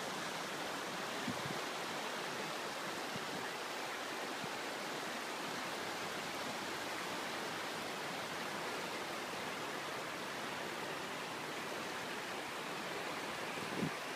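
Swollen North Saskatchewan River in flood, fast brown water rushing steadily as an even, unbroken noise, with a couple of low bumps near the end.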